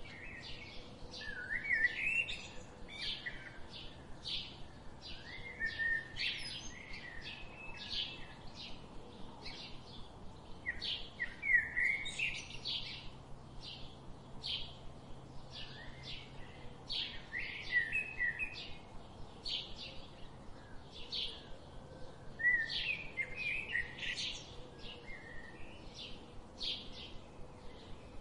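Birds chirping and singing: a steady run of short high chirps, a few a second, with a lower warbling song phrase every five seconds or so.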